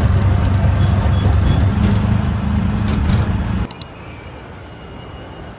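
Steady low motor hum that cuts off suddenly about three and a half seconds in, with a couple of sharp clicks, leaving a faint hiss.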